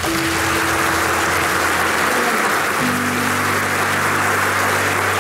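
Audience applauding steadily, with background music of low held notes underneath that move to a new chord about three seconds in.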